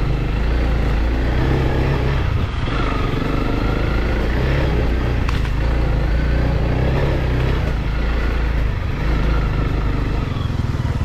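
Single-cylinder dual-sport motorcycle engine running steadily while the bike is ridden, with the revs easing briefly a couple of times. A single sharp click comes about halfway through.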